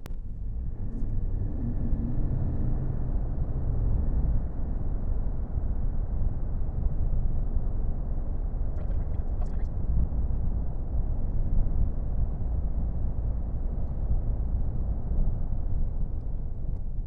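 Steady low rumble inside the cab of a 2021 AT4 pickup driving with its 3.0-litre Duramax inline-six diesel, mixed with road noise, while the engine is in a particulate-filter regeneration. A few light clicks come about nine seconds in.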